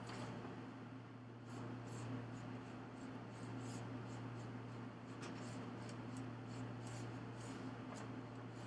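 Faint, irregular scratching and rubbing sounds over a steady low hum.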